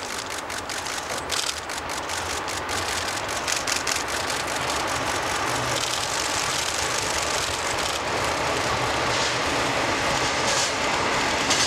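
Twin DD51 diesel locomotives hauling a sleeper train, their engines running and the train's rumble over the rails growing louder as it comes close. Rapid clicks sound through the first four seconds or so.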